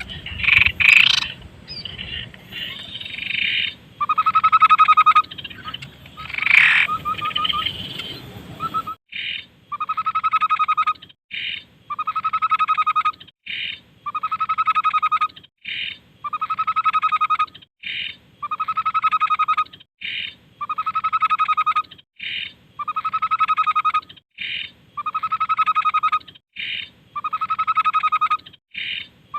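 Tepus (babbler) song. Varied calls over a low rumble for the first few seconds, then about nine seconds in a regular phrase repeating every second and a half or so: a short high note followed by a buzzy trill lasting about a second.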